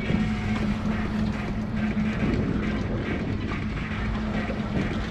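A boat's outboard engine running with a steady hum, with wind buffeting the microphone.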